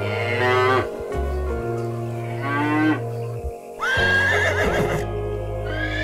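Cow mooing twice, then a horse whinnying about four seconds in, over background music.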